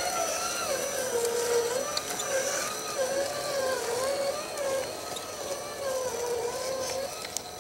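Electric motor and gear drive of an RC scale crawler whining, its pitch rising and falling as the throttle is worked over rocks.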